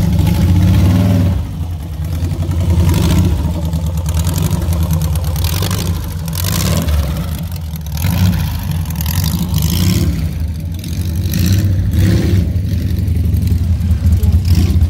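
Car engine running with a deep, steady low rumble, its loudness swelling and dipping every second or two.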